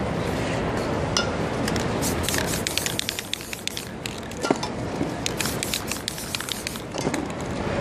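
Aerosol spray-paint can hissing as paint goes onto the canvas, among many quick clicks and rattles, over a steady low street rumble.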